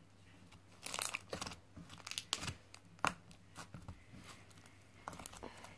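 Blue slime being stretched and squished by hand, giving off irregular sticky crackles and small tearing clicks.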